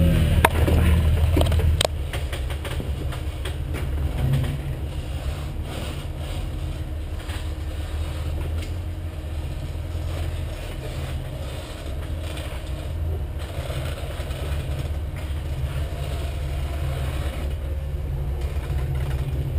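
A four-wheeler's engine idling with a steady low rumble. It runs louder for the first two seconds, then settles slightly quieter.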